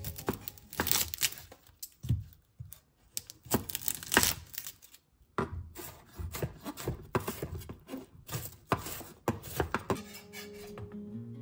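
Chef's knife slicing a red onion on a wooden cutting board: an irregular run of crisp cuts, each stroke knocking on the board, stopping about a second before the end.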